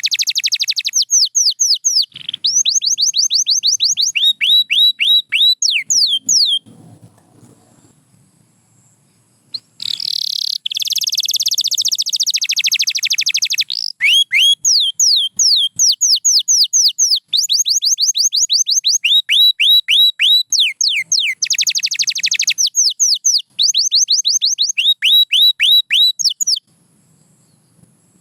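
Domestic canary singing: fast trills and long runs of quick, repeated falling notes, broken by a pause of a few seconds partway through.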